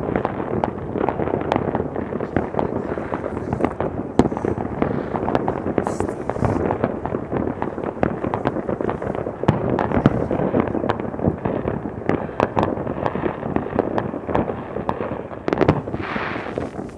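Many fireworks and firecrackers going off all at once, a dense, continuous crackle of pops and bangs. A brief hiss rises over the popping near the end.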